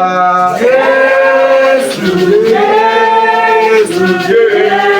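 A man singing a slow Yoruba worship song, holding long notes in three drawn-out phrases.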